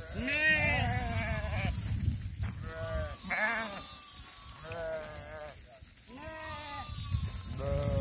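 A flock of sheep bleating on the move: about seven bleats, some overlapping, several with a quavering pitch, over a steady low rumble.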